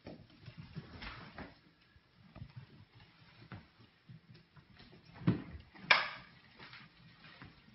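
Broom bristles brushing over a tile floor while a small puppy scrabbles after the broom head, giving soft scrapes and light ticking taps, with two louder, sharper sounds about five and six seconds in.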